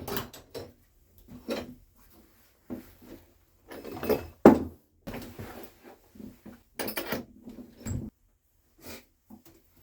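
A man's loud sneeze, building up for about half a second and bursting out about four and a half seconds in, among several shorter knocks and thuds.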